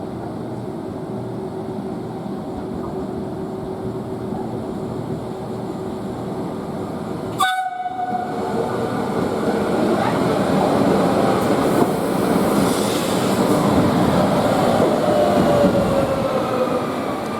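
A train running past, louder in the second half, with a horn-like tone that slides down in pitch near the end.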